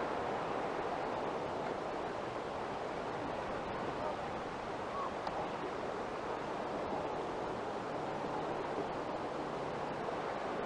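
Steady rush of sea water and waves, an even wash with no distinct events.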